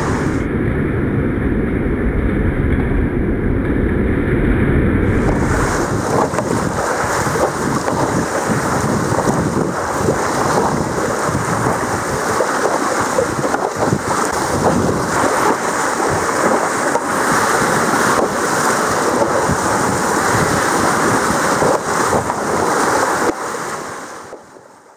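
Sea water lapping and splashing, with wind noise on the microphone, a steady rushing that fades out near the end.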